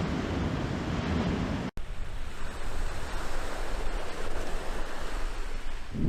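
Steady rushing noise, heaviest in the low end and fluctuating slightly, broken by a momentary total dropout about two seconds in.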